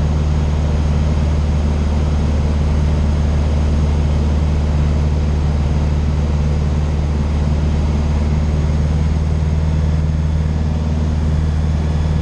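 Light aircraft's piston engine and propeller droning steadily in cruise, heard inside the cockpit.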